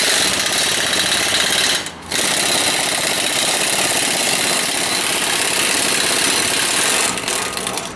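Pneumatic impact wrench hammering on a car's wheel bolt, in two runs: a short one, a brief pause at about two seconds, then a longer one that stops shortly before the end. The bolt is stiff, its thread stripped and full of metal filings.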